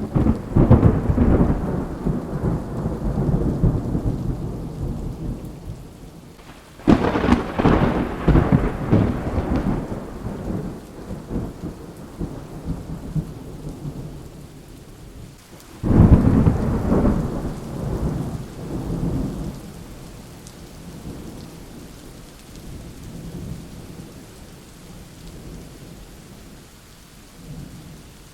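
Thunderstorm with steady rain falling throughout. Three peals of thunder come in: one right at the start, one about seven seconds in and one about sixteen seconds in, each breaking suddenly and rumbling away over several seconds.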